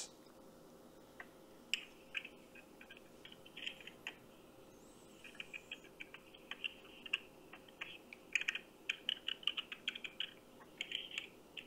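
Computer keyboard typing heard faintly over a phone line: irregular clicks, now single, now in quick runs, with a thin steady hum beneath.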